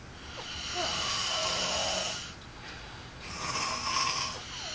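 Men snoring in their sleep: two long snores about two seconds each, with a quieter in-between breath.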